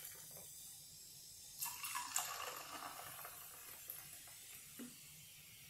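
Clear fizzy soda poured from a plastic bottle into glasses, faintly splashing and fizzing as it foams up over the salt and sugar in the glass.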